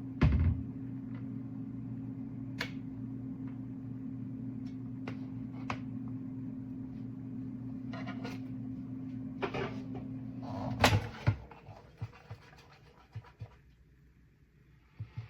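Glass electric kettle heating: a steady low electrical hum with scattered ticks, which stops at a sharp click about eleven seconds in as the kettle switches off. Faint ticking follows.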